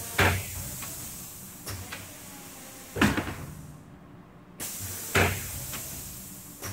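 Seal jaws of a Damark B44 sleeve wrapper clacking as they are cycled by the manual seal button: three sharp clacks, one right at the start, one about three seconds in and one about five seconds in, over a steady hiss.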